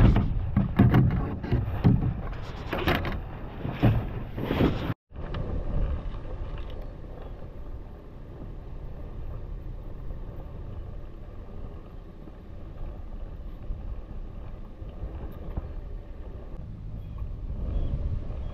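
Wind buffeting the microphone in strong gusts, then, after a cut about five seconds in, a steadier, quieter wind rush.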